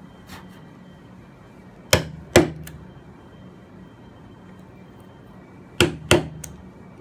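Hammer blows on a Japanese chisel chopping into wood: two sharp strikes about two seconds in, and two more near the end, each pair followed by a lighter tap.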